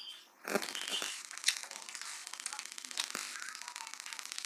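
Close-miked eating sounds: fast, fine crackling from chewing and handling food, with a few sharper clicks and smacks in the first second or so and again around three seconds in.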